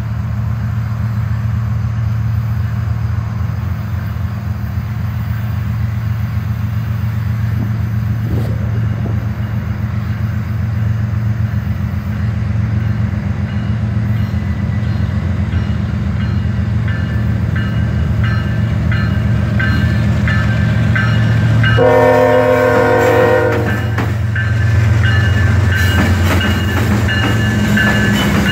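Union Pacific diesel freight locomotives approaching and passing close by with a steady low rumble. The air horn sounds, with one loud blast about three-quarters of the way through.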